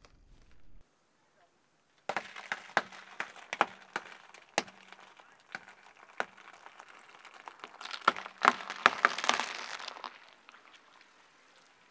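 Raw dyed eggs in paper-pulp egg cartons crushed under a slowly rolling car tyre: a string of sharp cracks of breaking eggshell, coming thick and fast with a crunching rush near the end.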